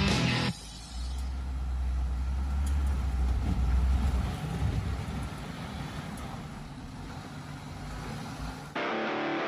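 Jeep Gladiator pickup driving slowly off-road: a low, steady engine rumble for the first few seconds, then rougher, uneven vehicle noise.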